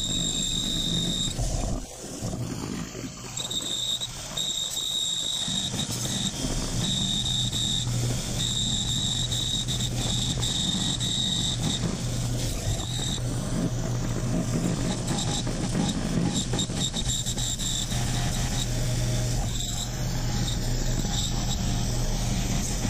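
A machine tool cutting a thick 6061 aluminium plate: a running motor hum with a high whine that breaks off and comes back every second or two.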